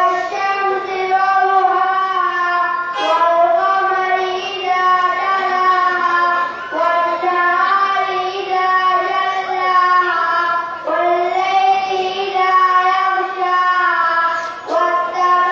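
A group of young boys singing together in unison, in held phrases of about four seconds with short breaks between them.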